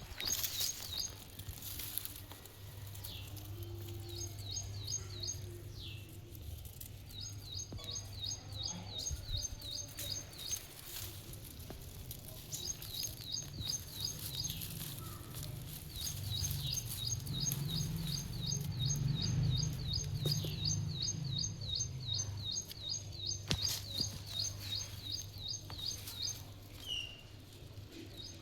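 A bird calling in long runs of quick, high chirps, about three or four a second, over a steady low hum, with a few sharp knocks.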